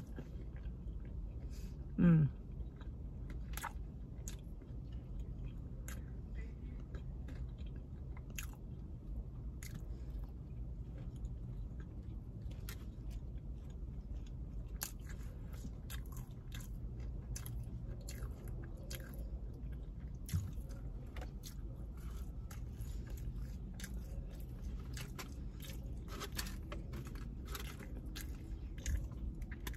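Close-up chewing of crispy battered fried fish, with many small sharp crunches over a steady low hum. About two seconds in there is a brief, louder falling 'mm'-like tone.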